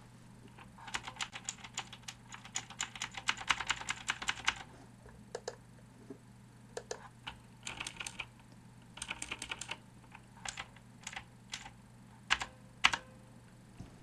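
Typing on a 1992 Chicony 5191 keyboard with vintage Cherry MX Blue clicky switches and thin ABS keycaps: a fast, dense run of key clicks for a few seconds, then shorter bursts and single keystrokes, with two louder strikes near the end.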